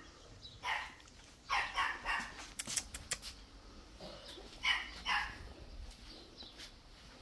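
A dog barking: several short, sharp barks in three small groups, with a few clicks between them.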